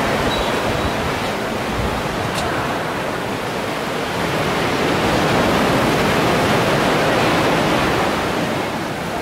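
Steady rushing of sea surf, with no distinct breaks and a slight swell in level in the middle.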